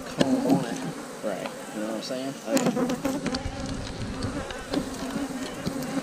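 Honeybees buzzing around an opened hive, many overlapping wavering buzz tones as bees fly close by, with a few light knocks.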